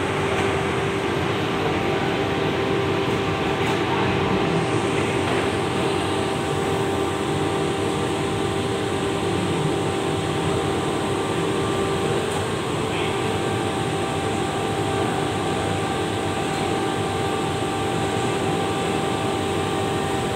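Steady din of a shopping-mall amusement area: an even wash of noise with a constant machine hum underneath, unchanging throughout.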